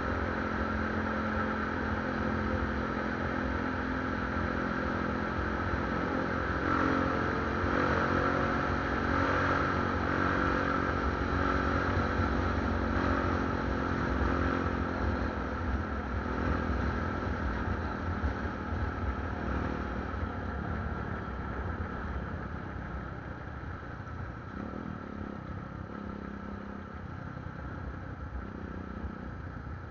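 Motorcycle engine running under way, heard with wind and road noise on the bike-mounted camera. The engine note holds steady, then gets quieter over the last ten seconds or so.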